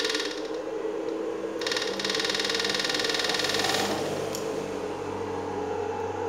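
SUSAN 1030SMP fish-stunning inverter buzzing with a rapid, even pulse while driving a 500-watt halogen bulb as its test load. The buzz cuts out just after the start, comes back about a second and a half in, and stops near four seconds, leaving a lower, steadier hum.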